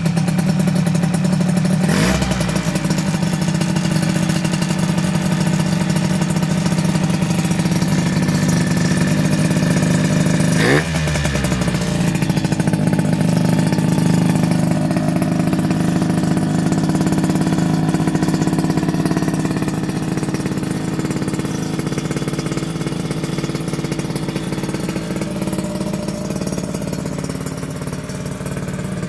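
Yamaha RZ50's 50cc two-stroke single running at idle through a BEET expansion chamber exhaust. It gives two quick throttle blips, about two seconds in and again near eleven seconds, each falling straight back to idle.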